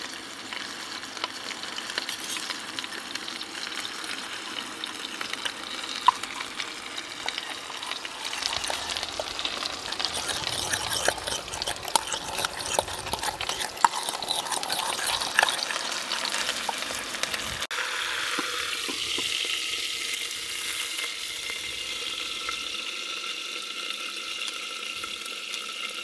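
Chuck roast sizzling as it sears in an Instant Pot on sauté, with a spoon clicking and scraping against an enamel bowl as dry seasonings are mixed. About two-thirds of the way through the clicking stops and a smoother, steady sizzle goes on.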